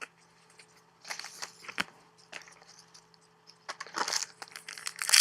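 Trading cards being handled, with scattered soft clicks and rustles, then a denser crinkling from about four seconds in, typical of a card pack's wrapper being handled.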